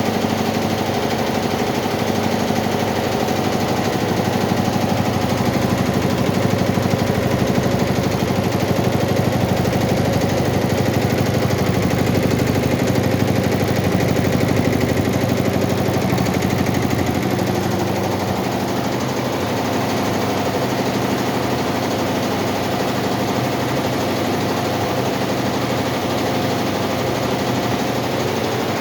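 Four-head computerized embroidery machine stitching: a steady, rapid clatter of needle strokes, easing slightly in loudness a little past halfway.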